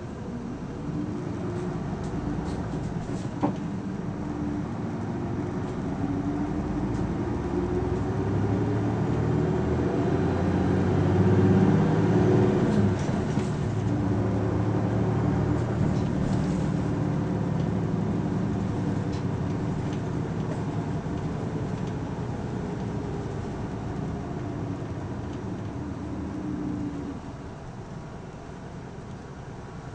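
Isuzu Erga city bus's diesel engine (PKG-LV234L2) pulling away, its note rising for about twelve seconds as it accelerates, then easing off and falling gradually until it drops away near the end. A single sharp click sounds about three and a half seconds in.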